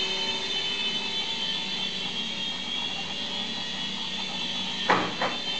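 UDI U801 toy RC helicopter's small electric motors and rotors running in flight, a steady high-pitched whine, with two sharp knocks close together near the end.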